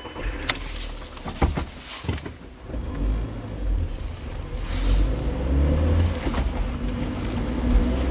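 Car sound effect: a few sharp clicks and knocks, then an engine rumbling and building steadily in loudness.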